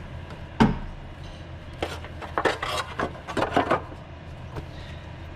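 Cover over the oxygen sensor being handled and fitted back into place: a sharp knock about half a second in, then a run of clinks and rattles between about two and four seconds in.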